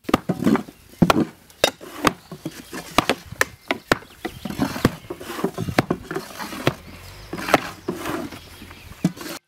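Boots treading and a hand rammer tamping a loose layer of earth inside wooden rammed-earth formwork, compacting it. The result is an irregular string of dull thuds and sharp knocks, about two a second.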